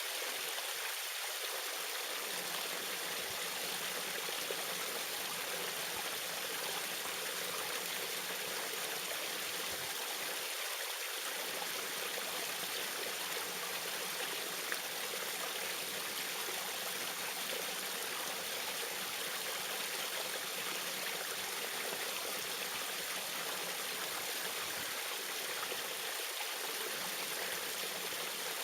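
Small waterfall, water splashing and streaming steadily.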